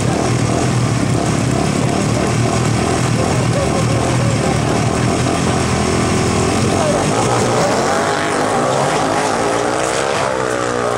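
Drag-racing golf cart engine running loud at the start line, then revving up as the cart launches and accelerates away, its pitch climbing and wavering over the last few seconds.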